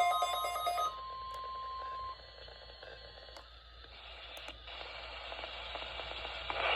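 Weather radio receiver alarm: a rapidly pulsing beep that cuts off just under a second in, followed by a steady single tone near 1 kHz that stops abruptly about two seconds in. Then faint radio static that slowly grows louder, with a few light clicks.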